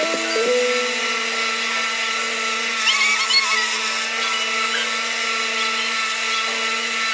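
Small bench belt sander running with a steady hum, a wooden piece pressed against the moving belt to shape it. The grinding grows a little louder and changes about three seconds in.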